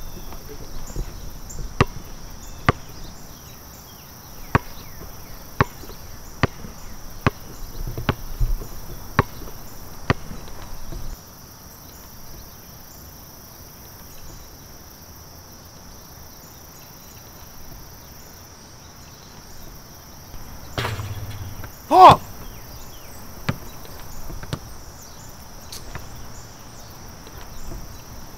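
A basketball bouncing on an asphalt court, dribbled about once a second for the first ten seconds, then only now and then. A steady high insect chirring runs underneath. One loud, sharp hit with a brief ring comes about two-thirds of the way through.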